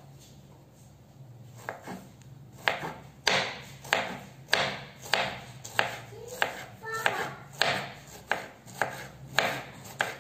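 Kitchen knife slicing courgettes on a wooden cutting board: a regular series of crisp knife strikes on the board, about two a second, starting about two seconds in.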